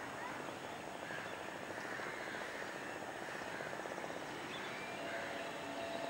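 Outdoor background noise: a steady hum of distant engines with a fine rapid pulsing, and a couple of steady tones coming in near the end, with a few faint, short bird chirps over it.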